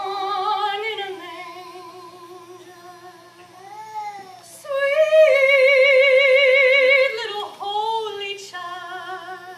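A woman singing solo, holding long notes with vibrato; the loudest and highest note comes from about five to seven seconds in.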